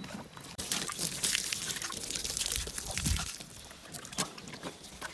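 Papaya-leaf juice and honey being poured from a bottle into a cow's mouth while drenching her, the liquid splashing and gurgling, with a dull thump about three seconds in.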